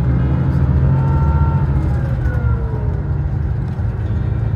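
Engine and road rumble heard from inside a moving bus: a steady low drone with faint whining tones that slide up and down in pitch.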